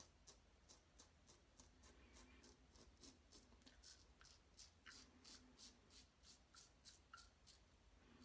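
Faint scraping of a Parker 69CR safety razor, closed-comb plate and Voskhod blade, cutting through lathered stubble on the chin and neck in short quick strokes, about three a second.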